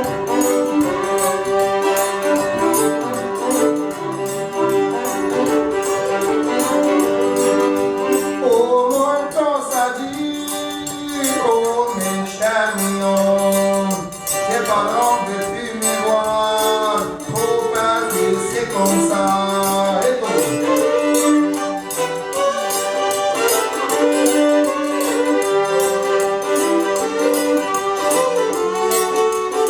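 Live Cajun string band music: fiddle and Cajun accordion playing a tune over a steady accompaniment, with a voice singing through the middle stretch.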